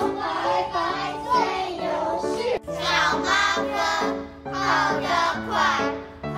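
Children singing a song over instrumental accompaniment, with a brief break about two and a half seconds in before the singing comes back louder.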